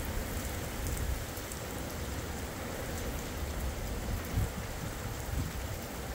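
Torrential rain pouring steadily onto a street and pavement, with a low, uneven rumble underneath.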